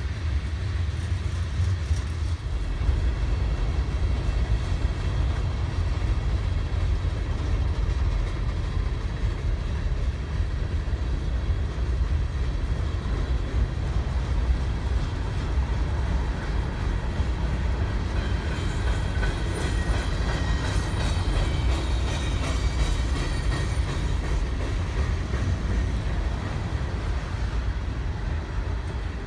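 Freight train cars rolling steadily past: a continuous low rumble of wheels on rails. A high ringing tone joins in for a few seconds past the middle.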